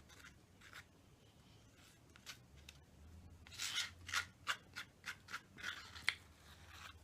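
Fried chicken being handled and eaten, heard as short crisp crackles and scrapes that come thick and fast from about halfway through.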